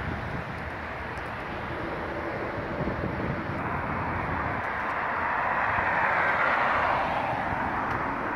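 Steady traffic on a busy main road, with one vehicle's tyre and engine noise swelling as it passes close, loudest about six to seven seconds in, then fading.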